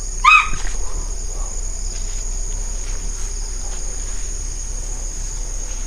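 Crickets and other night insects chirping in a steady, high-pitched chorus, with a short pitched sound about a third of a second in.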